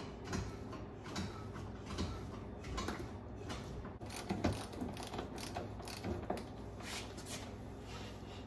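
Metal hand tools and fittings clicking and clanking irregularly against a Mercruiser Alpha One Gen 1 gimbal housing as parts are fitted to it.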